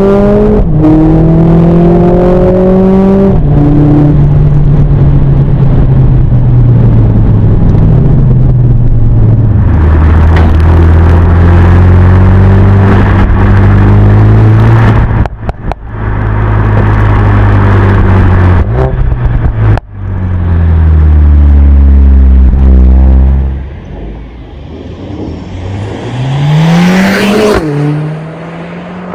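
Stage 1-tuned Mercedes-AMG A45 S's turbocharged 2.0-litre four-cylinder accelerating hard through the gears. The pitch climbs, then breaks and drops at each upshift, with sharp short breaks at the shifts in the middle. Near the end the engine eases off, then revs up steeply once more.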